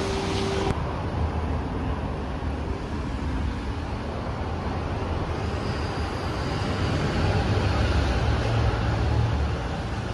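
City traffic noise in a pedestrian underpass: a steady low rumble of passing vehicles that swells from about seven seconds in.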